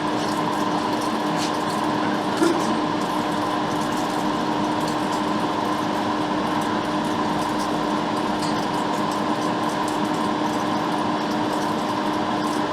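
Steady whirring of a small electric fan running at constant speed, with a steady low hum and a single faint click about two seconds in.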